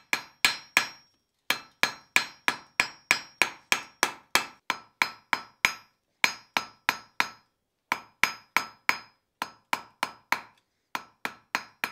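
Hand hammer striking a red-hot steel hook shank on the anvil in quick runs of sharp blows, about three a second, with a light ring from the anvil and a few brief pauses. The blows knock the sharp edges off the hook portion of the hook blank.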